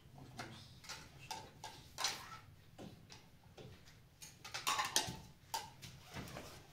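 Irregular light clinks and taps of plates and spoons being handled and set down on a floor cloth as food is served, busiest about four to five seconds in.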